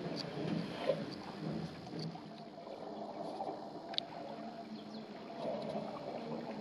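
African elephants drinking at a waterhole close by: irregular sloshing and splashing of water as their trunks draw up and squirt water. A single sharp click about four seconds in.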